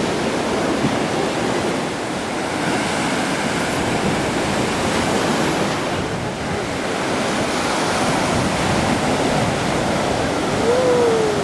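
Black Sea surf washing onto the shore in a steady rush. Near the end a single short call rises and then falls in pitch.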